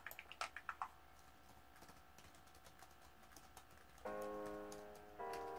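A run of rapid clicks in the first second, then light typing on a laptop keyboard under a plastic cover. About four seconds in and again about a second later, two held musical chords sound and fade.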